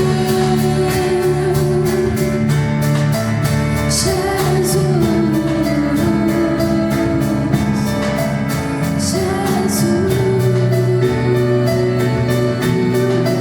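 Live band playing a gospel-style song: a female lead vocal over acoustic guitar, piano and drums, with a steady cymbal beat.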